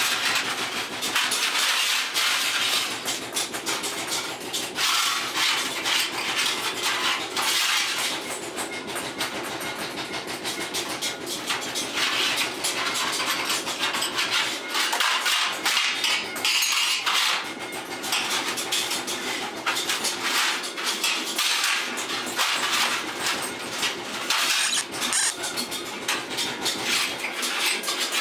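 Metalworking workshop din: continuous rapid clanking and hammering of metal, with a machine running steadily underneath.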